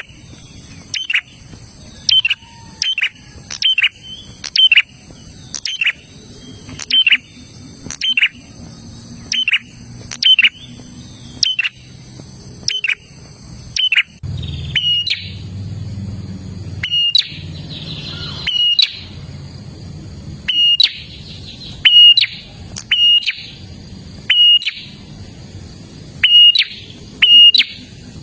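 A prinia (prenjak) calling: a loud, sharp, high note repeated about once a second, each one dropping in pitch at its tail. About halfway the notes turn shorter and flatter, and a low hum runs beneath them.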